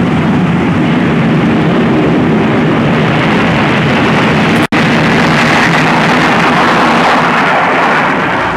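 Loud, steady engine noise from an early four-engine jetliner landing. The sound drops out for an instant about halfway through, then carries on.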